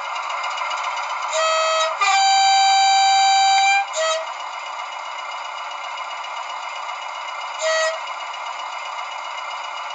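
Bachmann Class 20 model's DCC sound decoder playing its two-tone diesel horn through the model's small speaker, thin and without bass: a short low note, a long higher note, another short low note, and a further short low note a few seconds later. Under the horn the decoder's recorded Class 20 engine idles steadily.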